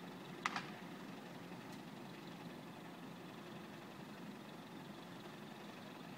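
Steady low hum of an idling vehicle engine, with a short, sharp clack about half a second in.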